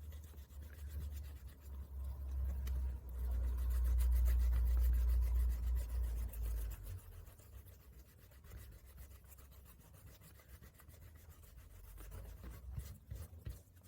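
Small piece of sandpaper scratching back and forth over a rubber bicycle inner tube in quick short strokes, roughing up the surface around a puncture so the patch and rubber cement will stick. A low rumble of handling is loudest in the first half.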